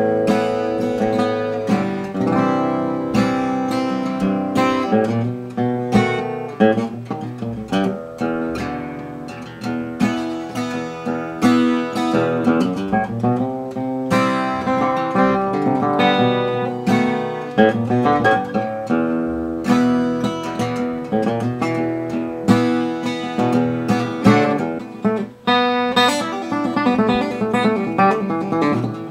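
Mid-1940s Gibson LG-2 acoustic guitar played solo: a steady flow of picked notes and strummed chords.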